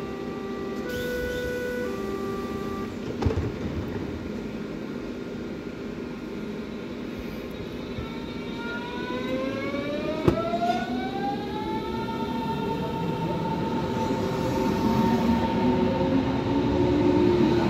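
Berlin S-Bahn class 481 electric train departing: a short stepped electronic door-warning signal, a knock as the doors shut, then the traction motors' whine rising in pitch for a few seconds and levelling off as the train pulls away.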